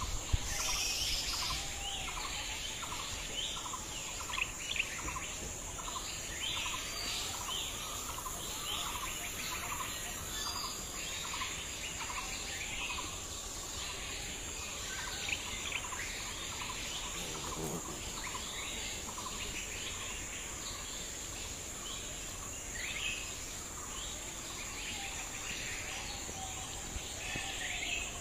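Outdoor rural ambience of birds calling, one bird repeating a short note about twice a second through the first half, with other scattered chirps over a steady high insect drone.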